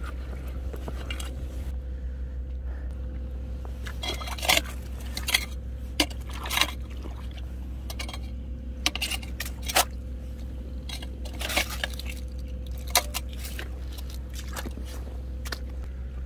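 Irregular clicks, clinks and scrapes of shells and stones being handled and knocked together on a rocky tidal shore, over a steady low hum.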